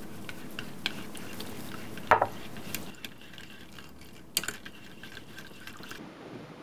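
A whisk stirring egg yolks into warm butter sauce in a stainless steel saucepan, with a soft liquid swish and a few sharp clinks of the whisk or bowl against the pan, the loudest about two seconds in.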